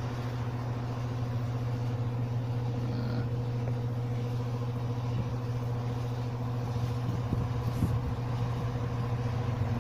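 A steady low mechanical hum, even in pitch throughout, with a few faint ticks near the end.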